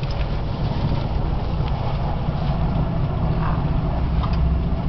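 Passenger train running at speed, heard from inside the carriage as a steady low rumble with a faint hiss and a few light ticks.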